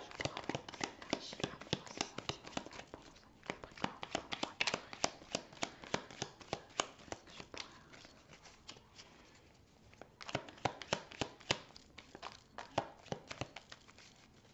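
A deck of oracle cards being shuffled by hand: a fast run of card flicks and clicks. It pauses briefly a little past the middle, then starts again.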